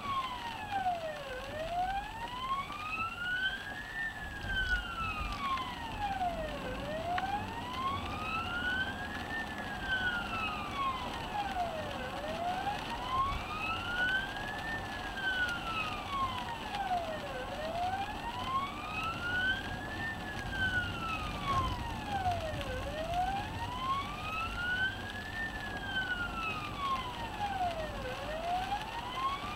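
Emergency vehicle siren on wail, heard from inside the ambulance response vehicle while it drives to a 999 call. Each slow rise and fall takes about five seconds, about six cycles in all, over low road noise.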